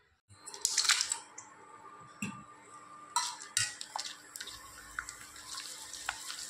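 Dried potato chips frying in hot oil in a steel kadai: a steady sizzle with scattered crackles and a few sharp clicks as a wire spider strainer stirs them.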